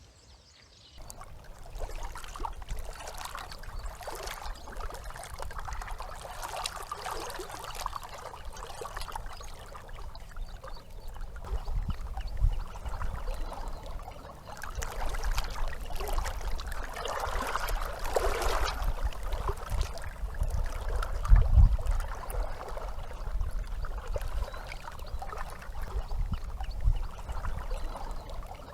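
Water lapping and trickling, with wind buffeting the microphone in a low rumble that is strongest about two-thirds of the way through.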